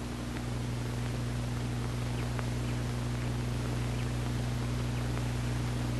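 Steady low electrical hum over a constant hiss, with a few faint clicks.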